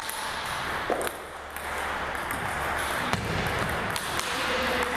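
Table tennis ball clicking off the paddles and the table during a serve and rally, a sharp tick every third to half second over the low hubbub of a gymnasium.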